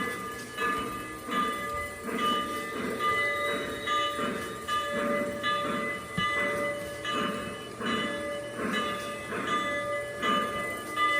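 Steam locomotive sound chuffing slowly and evenly, about one and a half chuffs a second, over a steady hiss and ringing tones.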